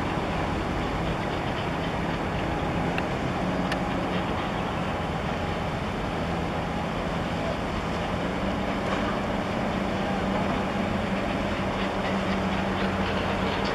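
Steady low drone of a ship's diesel engines with a constant hum, under a broad wash of wind and water noise.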